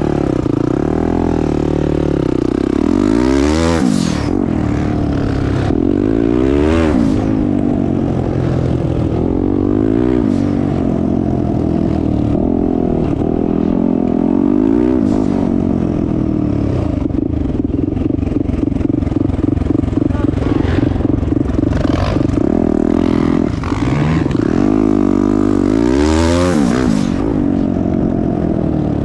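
Turbocharged 2021 Yamaha YZ450F dirt bike's single-cylinder four-stroke engine running on the move, revving up and dropping back again and again as the rider works the throttle and shifts.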